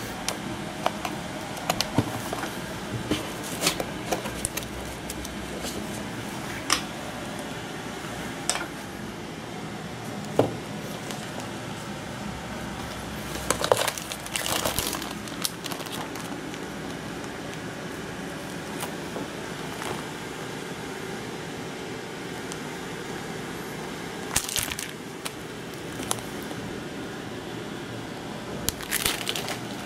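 Unboxing packaging being handled: a cardboard box, plastic sleeve and paper leaflets crinkling and rustling, with scattered light clicks and taps. A few short rustles stand out, the longest about halfway through and another near the end.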